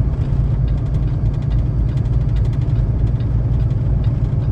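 Semi truck cab rumbling steadily in a low gear on a slow descent, with a fine fast rattle from the snow chains on the drive tires shaking the whole truck.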